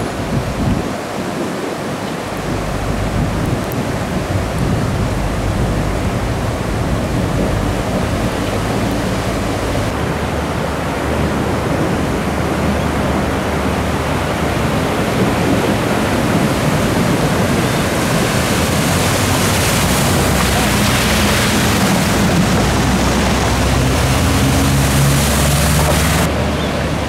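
Muddy floodwater rushing across a street while cars drive through it, their tyres pushing and splashing the water. In the last several seconds the splashing gets louder and brighter, with a low engine hum under it, before it changes abruptly.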